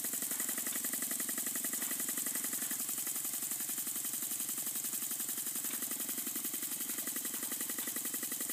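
Small home-built wobbler (oscillating-cylinder) engine running on compressed air at about 5 psi: a rapid, even chuffing of exhaust air with each stroke, holding a steady speed. It is running smoothly.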